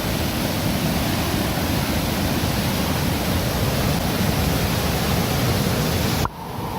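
Steady, loud rush of a rain-swollen river waterfall. It cuts off abruptly near the end and a different rushing noise follows.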